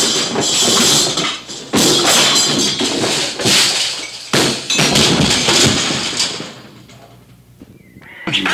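Cartoon sound effects of a body tumbling down a snowy slope: a run of noisy crashes and thuds, with several sharp impacts a second or so apart, that dies away about six and a half seconds in.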